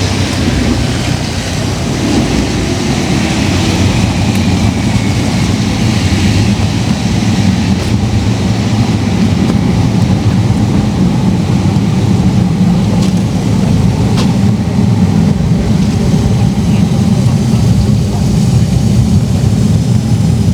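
An engine running steadily, a continuous low drone with a faint hum, loudening a little in the first few seconds and then holding.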